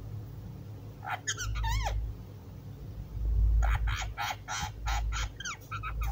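Alexandrine parakeet calling: a short burst of warbling squawks about a second in, then a quick run of short, chattering calls through the second half, over a low rumble.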